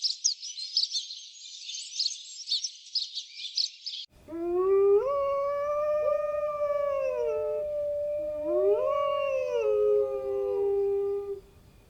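Dog howling: long drawn-out howls that rise, hold and fall, two overlapping stretches, starting about four seconds in after a dense high-pitched chirping chorus cuts off abruptly.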